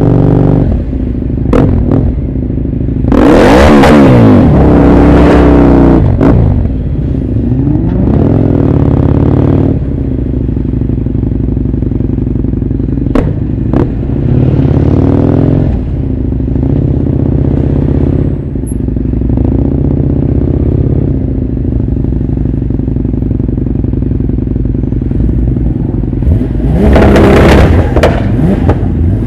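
Motorcycle and car engines running at low speed in slow traffic, revved hard in several short surges, the loudest about three seconds in and near the end, with a few sharp cracks between them.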